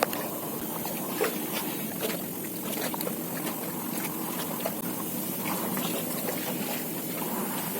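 Water lapping and trickling around a small fishing boat on a river, with scattered light knocks and drips.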